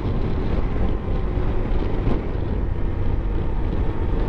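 Wind rushing over the microphone of a moving BMW F700GS motorcycle, with the bike's parallel-twin engine running underneath.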